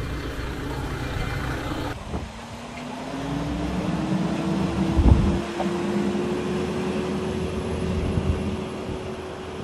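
Kyoto Tango Railway KTR 700 series diesel railcar pulling away, its engine note rising steadily in pitch for several seconds and then holding level. A single dull thump comes about halfway through.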